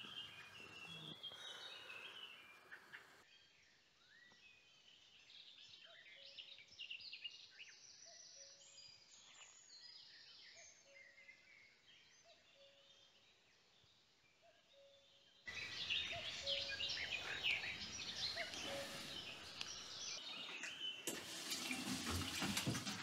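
Faint bird chirps, then about two-thirds of the way in a tap starts running into a stainless-steel sink as dishes are washed, with birds still chirping.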